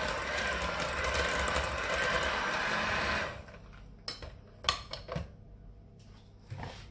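Electric hand mixer running steadily, beating cream cheese and crème fraîche, switched off about three seconds in. A few light knocks follow.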